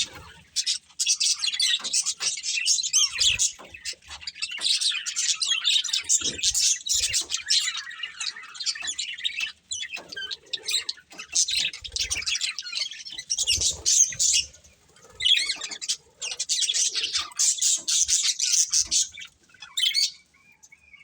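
Budgerigars chattering in a fast, high warble of chirps and squawks, in long runs broken by short pauses, falling quiet about a second before the end.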